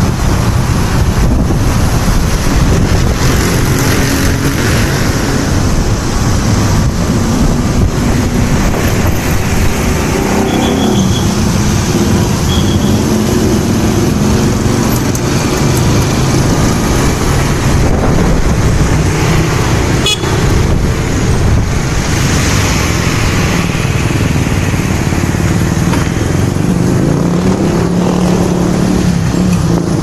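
Riding a motorcycle through city traffic: steady engine and road noise from the bike and the traffic around it, with the engine pitch rising and falling. A couple of short horn toots sound about ten to thirteen seconds in.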